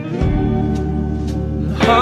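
A slow song with guitar and a held low bass note, in a pause between sung lines; the male singing voice comes back in near the end.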